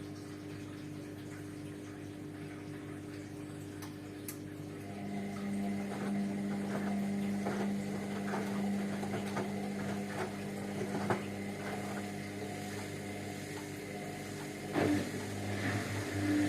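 Hotpoint Ariston washing machine running, with a pump starting about five seconds in and humming steadily while water gurgles through it; near the end a thump comes and a lower motor hum starts.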